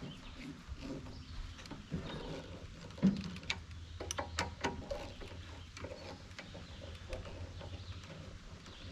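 Small metal parts and hand tools clicking and knocking as the mower is put back together, with one louder thump about three seconds in and a quick run of clinks just after, over a steady low hum.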